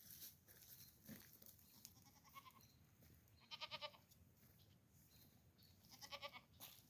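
Goat bleating faintly: three short, high, quavering bleats, the loudest about halfway through.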